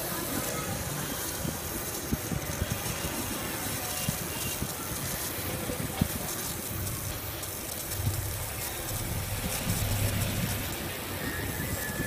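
Laser engraving machine at work marking a Zippo lighter's metal case: a steady hiss with a few sharp clicks, over an uneven low rumble.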